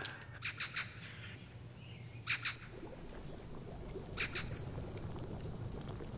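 Short bird chirps in quick clusters of two or three, about every two seconds, over a faint steady low hum.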